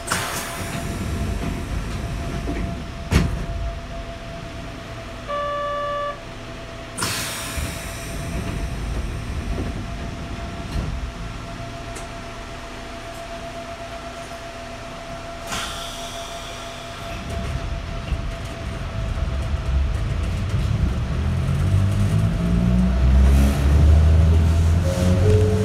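Inside a Sangi Railway 270 series narrow-gauge electric train: a steady hum and low rumble with a few sharp knocks, and a short one-second tone about five seconds in. From about two-thirds of the way through, the traction motors whine steadily upward in pitch and grow louder as the train accelerates.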